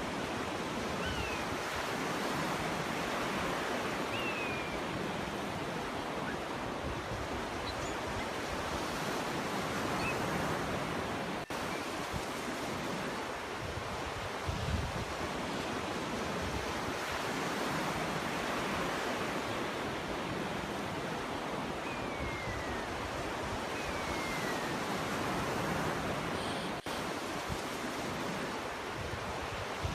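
Sea surf washing onto a shore in a steady rushing hiss that swells and eases every several seconds. A few faint, short bird calls slide downward in pitch over it.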